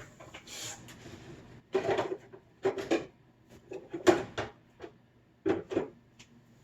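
A handful of short knocks and clatters spread over several seconds, as a kitchen cupboard is rummaged through and jars and doors are moved.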